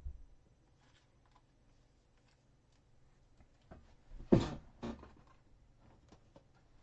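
Handling of trading cards and a plastic top loader: scattered light clicks and rustles, then two short loud knocks about four and a half seconds in.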